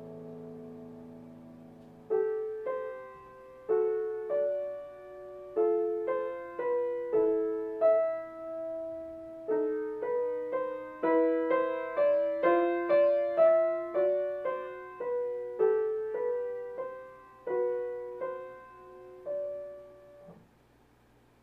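Grand piano played solo. A low chord rings and fades, then from about two seconds in a slow melody of single notes and chords in the middle register comes in. It grows busier through the middle and dies away to near silence just before the end.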